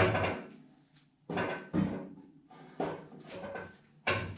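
Snowblower auger being worked onto its shaft: about five sharp knocks, each with a short ring, at uneven spacing.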